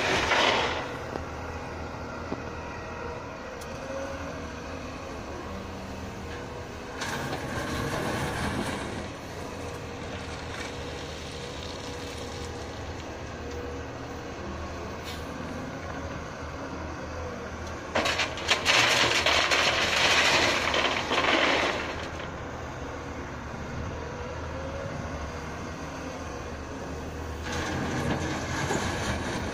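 Cat tracked excavator's diesel engine running steadily with a hydraulic whine, broken by several spells of rattling gravel as the bucket digs out railway track ballast and tips it into a steel dump trailer; the loudest spell comes a little past halfway.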